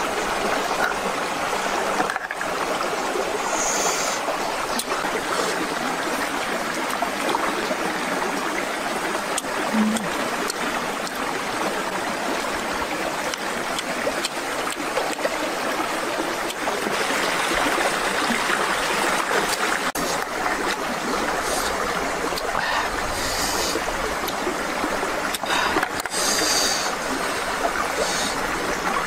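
Steady rushing of running water from a stream.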